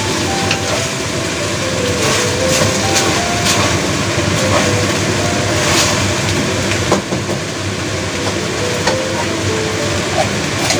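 Eggplant and minced meat sizzling in a hot metal wok while a wooden spatula stirs them, scraping and knocking against the pan now and then.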